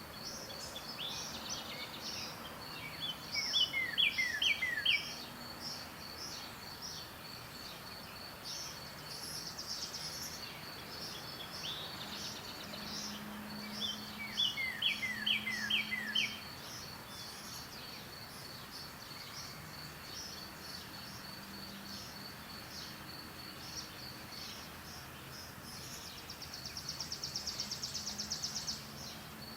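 Backyard birds singing: a bird twice gives a short song of quick, falling whistled notes, about three seconds in and again about fourteen seconds in, and a fast high trill comes near the end. Under them a steady high call pulses evenly, a few times a second.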